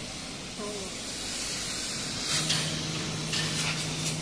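Steady hiss of air from a CNC plasma cutting table's torch. About two seconds in, a low steady hum joins it, followed by a few short metallic knocks.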